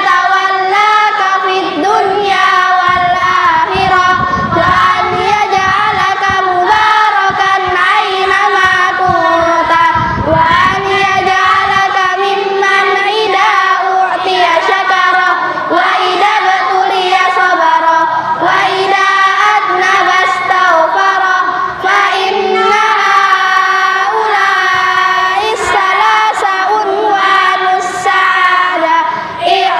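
A group of children chanting an Arabic religious text in unison, a steady melodic group recitation with held, sung notes.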